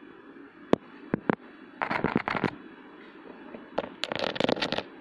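Hands handling a small Bluetooth speaker: three sharp clicks in the first second and a half, then two spells of crackly rustling and clicking as it is gripped and turned over.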